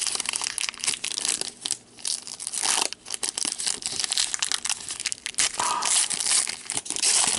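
Card-pack wrappers crinkling and tearing as packs of hockey cards are opened: a dense, crackling rustle with two short lulls, cutting off suddenly at the end.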